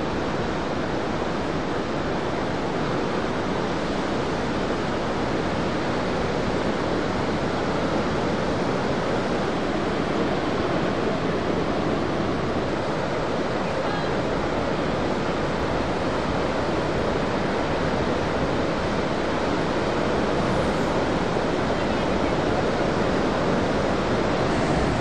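Continuous, even wash of large breaking ocean surf, with no single crash standing out.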